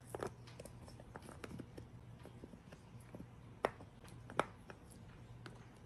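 Long-haired dachshund pawing and biting at an upholstered chair: scattered soft clicks and scrapes of claws and teeth on the fabric, with two sharper clicks about three and a half and four and a half seconds in.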